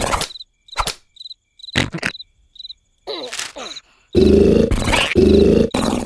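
Cartoon soundtrack: a hush filled with cricket chirps in short high pulses, dotted with a few clicks and a brief falling sound effect. About four seconds in, loud comic sound-effect bursts start, repeating about twice a second.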